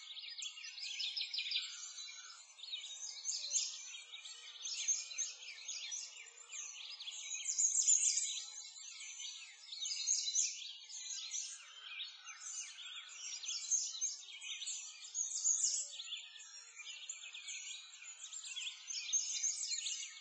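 A dense chorus of songbirds chirping and trilling continuously, many calls overlapping, all high-pitched with no low sound beneath.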